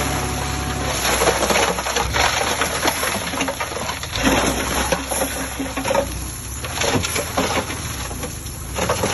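Irregular clattering and crackling from earthmoving machinery at work, with a low engine hum that fades about a second in.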